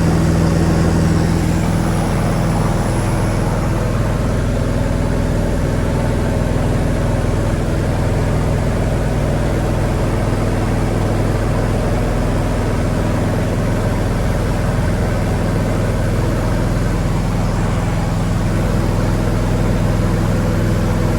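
Steady drone of a Diamond DA20's single piston engine and propeller in flight, heard from inside the cockpit.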